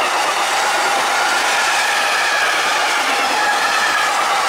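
Empty intermodal flat wagons of a freight train rolling past: steady wheel-on-rail noise with faint, drifting ringing tones above it.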